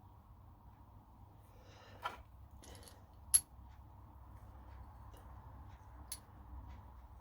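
Small metal pieces handled on a workbench: a few light metallic clicks and clinks, the sharpest a little under halfway through, over a faint steady hum.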